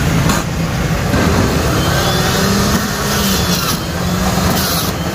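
Electric centrifugal juicer's motor running steadily while peeled sweet limes are pressed into it, with a few short, sharp noises.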